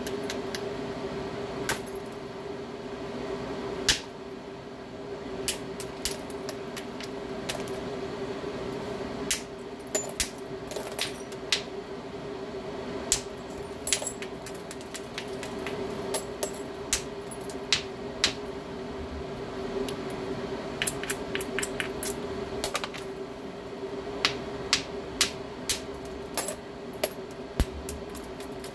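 Hammerstone knapping a stone biface: sharp stone-on-stone clicks and taps at an irregular pace, with a quick run of light taps partway through, over a steady low hum.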